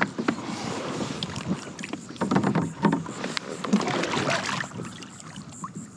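Kayak paddle strokes: the blade dipping and swishing through calm shallow water, with drips and a few sharp clicks. The strokes are strongest in the middle and ease off near the end.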